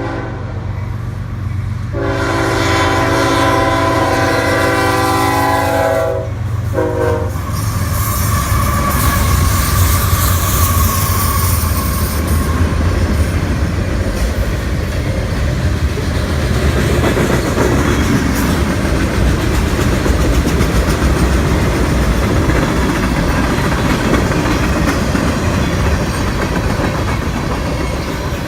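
Train horn sounding a long chord-like blast, then a short one, followed by the train passing close by: loud rumbling with the clickety-clack of wheels over the rail joints.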